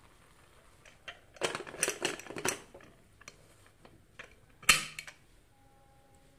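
Aluminium pressure cooker being closed: a run of metal clinks and scraping as the lid is set on and turned into place, then one loud sharp clank near the end, as the whistle weight goes onto the vent.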